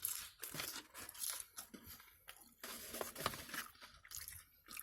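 Close-up eating sounds: irregular crunching and tearing of food as it is bitten and chewed, in short quiet crackles.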